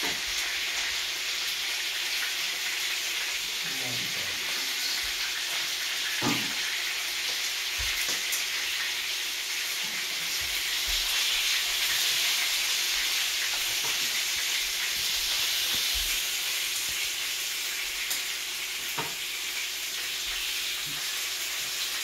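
Marinated chicken pieces sizzling steadily as they shallow-fry in hot oil in a frying pan, a little louder midway. A few light clicks of metal tongs against the pan as the fried pieces are turned and lifted out.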